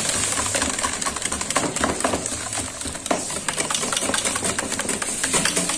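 Wire balloon whisk beating a thick cashew batter in a stainless steel bowl: a fast, steady run of clicks and scrapes as the wires strike the metal bowl.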